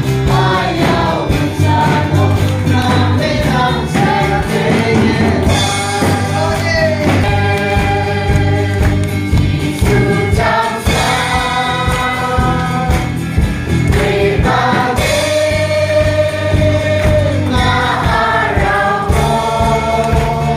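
A church congregation and worship band singing a gospel song together, male and female voices over acoustic guitar, bass guitar and drums keeping a steady beat.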